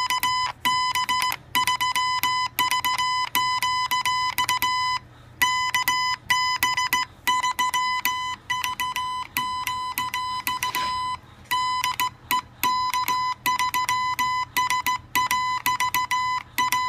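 Code practice oscillator sounding a high beeping tone, keyed on and off in Morse code with a sideswiper key in short and long elements. A click marks each start and stop, and the tone is heard through an earphone.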